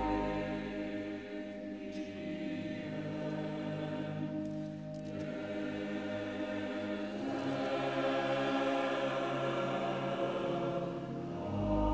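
Choir singing slow, sustained chords of sacred music.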